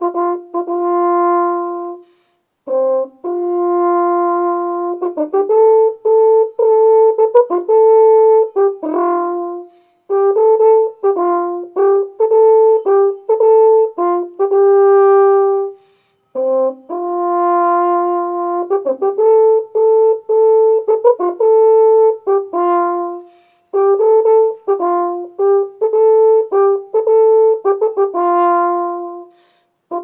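Cornu ligneum, a free-held wooden alphorn-type horn with a square bore, playing a solo tune of held and quick notes in phrases of several seconds with short breaks between them. Its tone is soft and carrying, between a tenor horn and a French horn.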